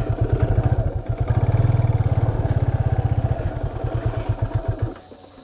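Yamaha FZ25's freshly rebuilt 249 cc single-cylinder engine running at low speed with a steady, rapid exhaust beat as the bike rolls slowly over dirt, then stopping abruptly near the end.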